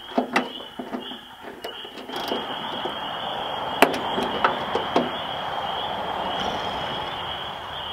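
Scattered sharp metallic clicks of a ratchet and 8mm socket working a rusted third-brake-light nut on a bare steel trunk lid, the loudest about four seconds in. Underneath are a steady high-pitched insect chorus and, from about two seconds in, a steady rushing hiss.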